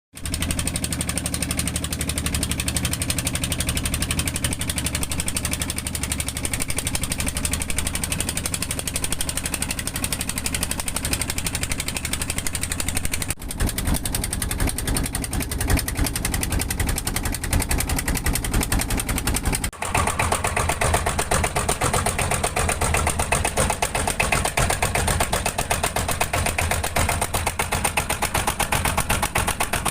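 An engine running with a rapid, even pulse. Its sound changes abruptly twice, about a third and about two-thirds of the way through.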